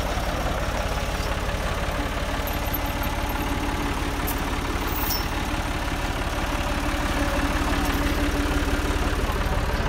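Tractor engine idling steadily, a little louder in the last few seconds.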